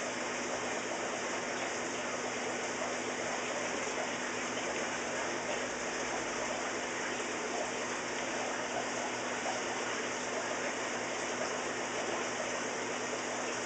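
Water from two hoses running steadily into a large aquarium as it is refilled.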